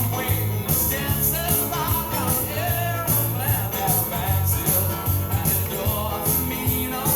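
Background music: a song with a steady bass beat and a wavering melodic line, likely a singing voice.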